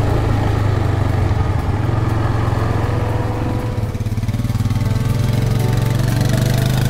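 Quad bike engine running steadily, its pitch rising a little near the end.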